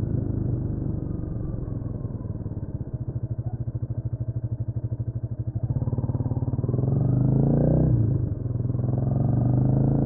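Honda CMX250 Rebel's single-cylinder engine drops to low revs with separate slow firing pulses, then revs rise about six seconds in as it pulls away. The pitch falls briefly near eight seconds, as at a gear change, before it runs on steadily.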